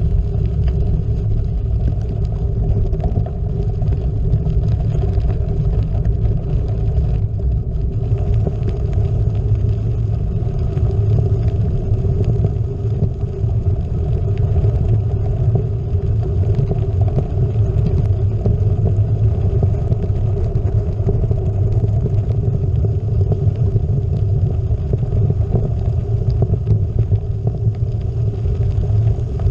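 Gravel bike rolling along a gravel road: a steady low rumble of tyres on gravel and wind on the GoPro microphone, with faint scattered clicks of stones.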